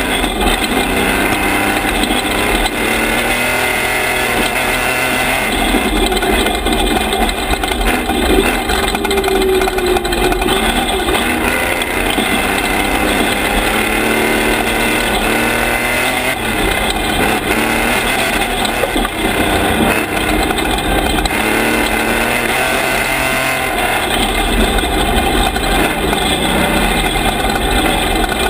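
Toyota-based Class 1450 desert race truck driven hard on a dirt road, its engine note rising and falling again and again as it accelerates and lets off, over a steady rush of tyre and gravel noise.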